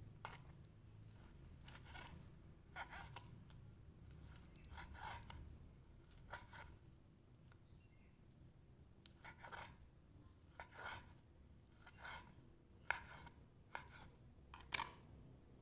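Kitchen knife slicing raw beef on a plastic cutting board: faint, irregular taps and scrapes as the blade goes through the meat and meets the board, roughly one a second.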